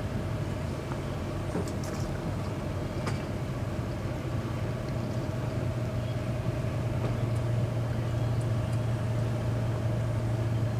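An engine idling steadily, its low hum growing slightly louder over the last few seconds.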